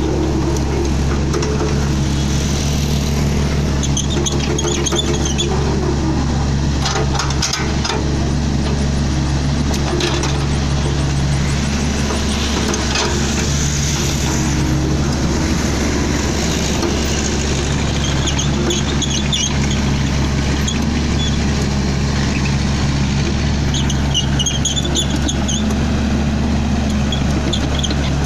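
Sany SY55C mini excavator's four-cylinder Isuzu 4JG1 diesel engine running at a steady speed, with intermittent high-pitched squeaks and a few sharp knocks along the way.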